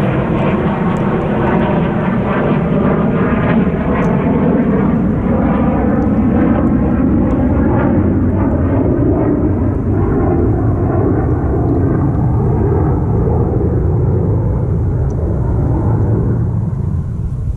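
Airplane engine drone passing overhead, loud and steady, its pitch slowly falling and fading near the end.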